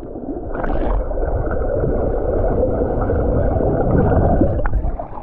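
Muffled underwater sound of a swimming pool through a submerged action camera: a steady low rushing and bubbling of water, with a man blowing air bubbles out through his nose. It grows quieter near the end.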